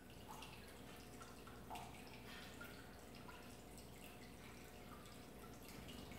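Faint, irregular dripping of water, small plinks at differing pitches about twice a second, over a low steady hum.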